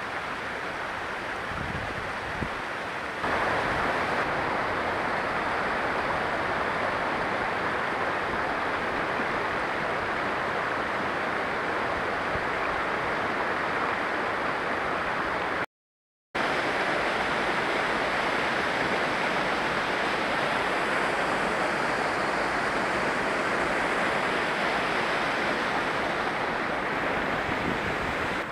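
Steady rushing of a mountain stream and small waterfalls cascading over rocks, with some low wind rumble on the microphone in the first few seconds. It gets louder about three seconds in and drops out completely for about half a second near the middle.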